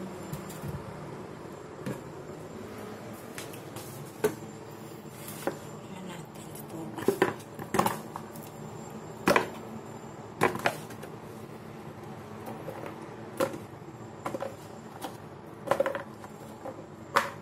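Kitchen handling sounds: about a dozen irregular sharp knocks and clatters as cut pieces of corn cob are handled on a wooden cutting board beside a plastic bowl, the loudest in the middle stretch.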